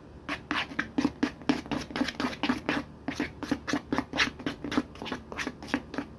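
Tint brush stirring and scraping thick hair-bleach paste (powder lightener mixed with developer) in a plastic mixing tray, in quick repeated strokes, several a second. The paste has puffed up while standing and is being worked back down to a smooth consistency.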